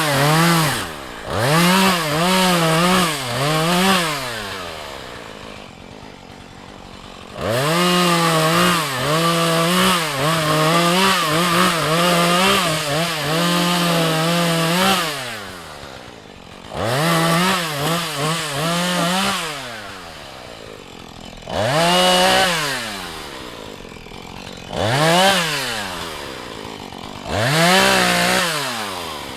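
Husqvarna 435 two-stroke chainsaw revved to full throttle in repeated bursts, the longest about seven seconds, its pitch wavering as it works through wood, and falling back to idle between cuts.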